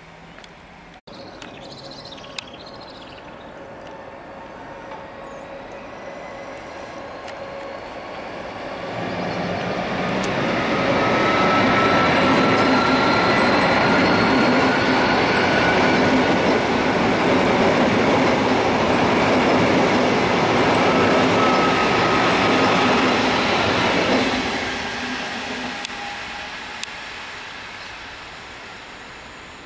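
A PKP Intercity Pendolino high-speed electric train approaches, passes close by and fades away. A rumble of wheels on track grows from about eight seconds in and stays loud for some fourteen seconds, with a steady high whine over it, then dies down.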